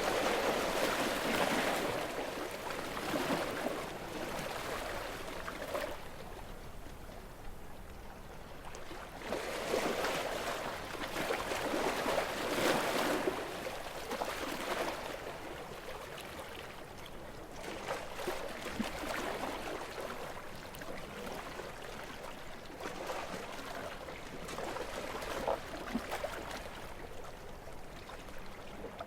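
Small, gentle sea waves washing and lapping against the shore, rising and falling in soft swells every few seconds.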